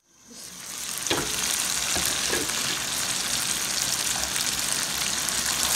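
Mutton pieces, tomatoes and spices frying in hot oil in a karahi: a steady sizzle that fades in over the first second. This is the bhuna stage, frying the meat in oil after its cooking water has dried off. A few light knocks from the spatula against the pan.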